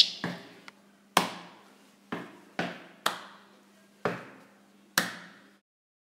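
Body percussion with hands and shoes: about eight sharp claps and stomps in an uneven beat, each dying away quickly, over a faint steady hum. The hits stop near the end.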